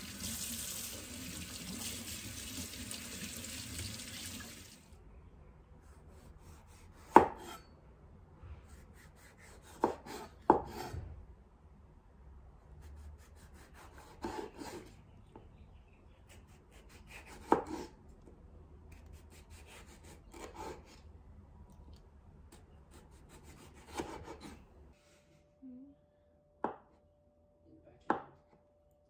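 Kitchen tap running into a stainless steel sink while a tomato is rinsed under it, stopping after about five seconds. Then a chef's knife slices tomato and avocado on a bamboo cutting board, with a sharp knock of the blade on the board every few seconds.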